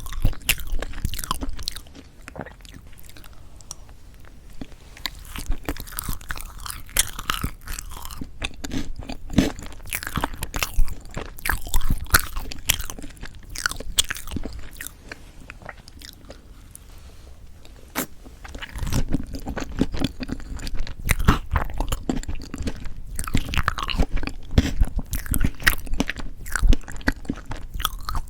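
Close-miked chewing and biting of strawberry chocolate cream cake, with many sharp little clicks and mouth sounds. It is quieter through the middle and denser and louder for the last third.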